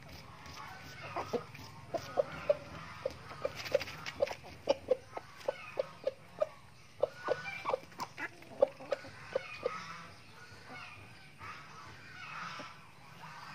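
Chickens clucking: a long run of short, low clucks, two or three a second, from about a second in until near the end, with softer higher chatter around them.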